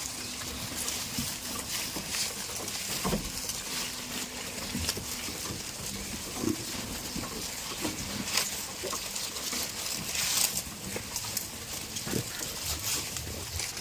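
Goats in a farm pen: scattered rustling and short knocks over a steady hiss.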